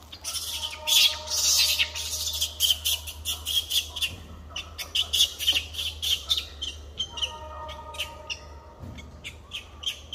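Rapid high-pitched chirps and squeaks, several a second, loudest in the first two seconds, with steadier whistled tones coming and going underneath.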